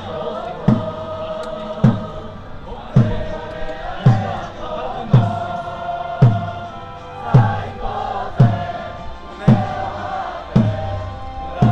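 Football supporters singing a chant together, in time with a big bass drum struck about once a second.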